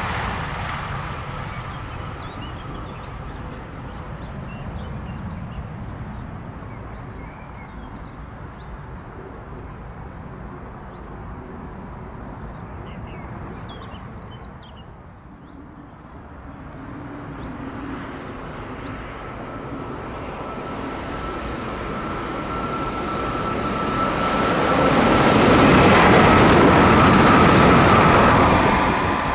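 A high-speed train approaching and passing at speed on the high-speed line. Its rush builds steadily after a quiet lull partway through, with a steady high whine over it, and is loudest near the end.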